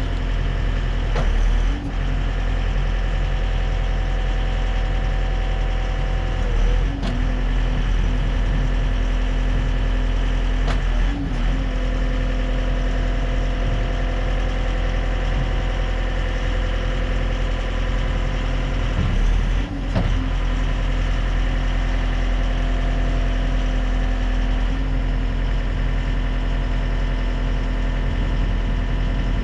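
Gehl V330 skid steer's diesel engine running steadily, with a few brief dips or shifts in its sound.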